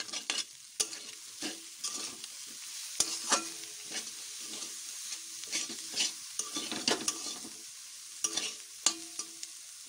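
Metal spatula scraping and tapping against a metal wok as vegetables and crumbled egg are stirred while frying in oil, over a steady sizzle. The strokes come irregularly, several a second, some leaving a short metallic ring.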